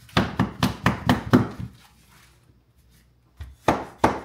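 Hardwood flooring boards being tapped into place by hand, sharp wooden knocks: a quick run of about seven, a pause, then more starting near the end.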